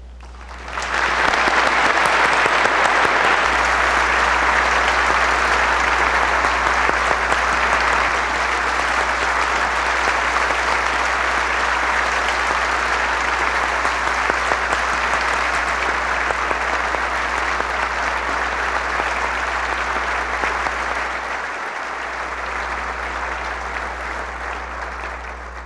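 A large congregation applauding in a reverberant chapel, starting about a second in, holding steady, and thinning out near the end.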